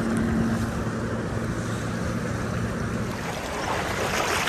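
Rushing river water with wind on the microphone, under a low steady hum that fades out about two-thirds of the way through.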